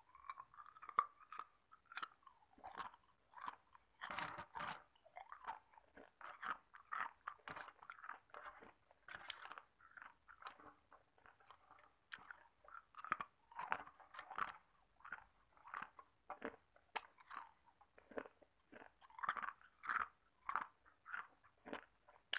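Hard ice cubes made of tap water being bitten and chewed: a steady run of sharp, crackling crunches, several a second.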